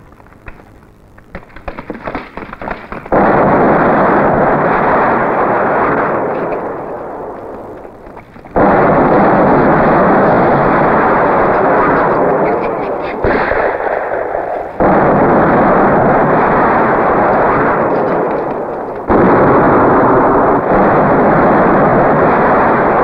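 Scattered gunshots, coming faster over the first few seconds, then a series of four large explosions, about 3, 9, 15 and 19 seconds in. Each is a sudden blast whose rumble dies away slowly over several seconds: film battle sound effects of shelling.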